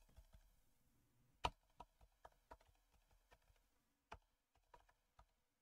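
Faint, irregular computer keyboard keystrokes as a web address is typed, two of them a little louder, about one and a half and four seconds in.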